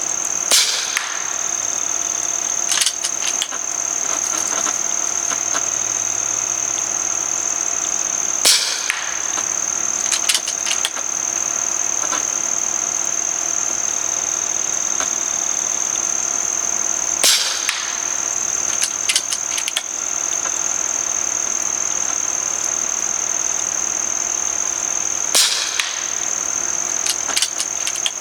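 Four shots from a regulated .22 JTS Avenger PCP air rifle, about eight seconds apart, each a sharp crack followed about two seconds later by a few lighter clicks. Crickets trill steadily throughout.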